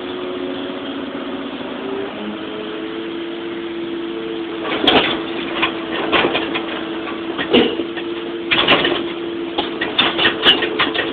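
Excavator engine running steadily while broken concrete and rubble tip from the bucket into a steel dump-truck bed. The chunks land with irregular clattering knocks starting about halfway through, and they come thicker near the end.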